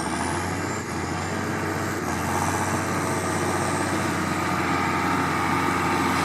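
Tractor diesel engine running steadily, gradually getting a little louder.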